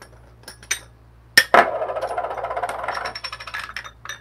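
Metal brew head and portafilter of a Flair Neo espresso maker being handled over a glass bowl. A few light clicks, then a sharp knock about a second and a half in, followed by about a second and a half of rapid clattering and a few more clicks near the end.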